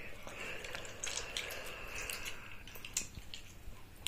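Close, faint chewing of chewy pick-and-mix sweets: soft wet mouth sounds with scattered small clicks.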